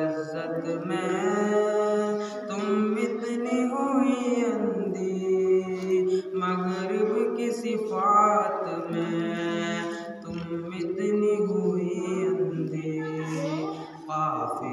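A man's solo voice singing an Urdu nazm, a devotional poem, into a microphone in long held notes that glide between pitches, with short breaks between phrases.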